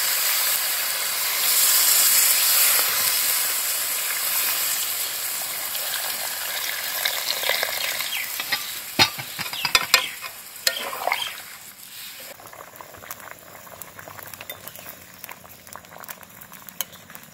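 Chicken and potato curry in a metal kadai sizzling hard as water is poured onto the hot fried masala, with a metal spatula stirring and knocking against the pan. About twelve seconds in the sizzle gives way to a much quieter bubbling with faint ticks as the gravy comes to the boil.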